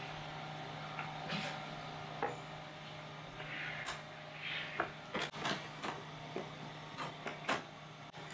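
Plastic interior trim panels of a Ford Bronco being handled and pressed back into place: scattered sharp clicks and snaps with some rubbing and rustling, more frequent in the second half, over a steady low hum.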